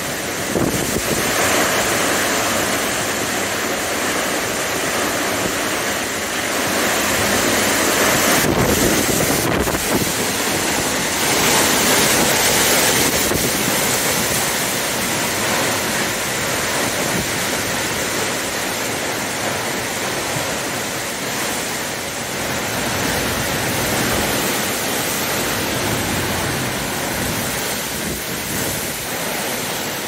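Derecho winds rushing through trees, with wind buffeting the microphone. The noise is steady and loud and swells in stronger gusts about a third of the way in.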